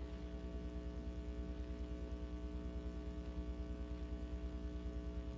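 Steady electrical mains hum and buzz, several pitches at once with a slight regular pulsing, and no other sound.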